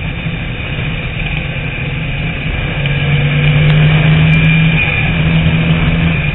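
TVR Tuscan race car's engine heard from onboard, running hard at speed with a steady low note that gets louder about halfway through.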